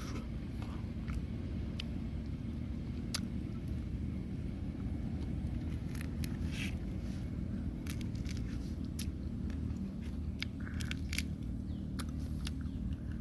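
A person eating crispy grilled catfish, biting and chewing: scattered short crunches and crackly clicks over a steady low rumble.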